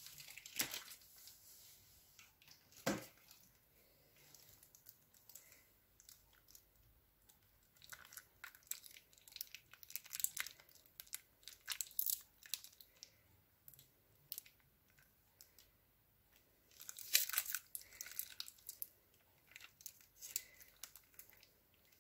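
Plastic piping bag full of slime crinkling and crackling as it is handled, in faint irregular bursts, busiest about three-quarters of the way through.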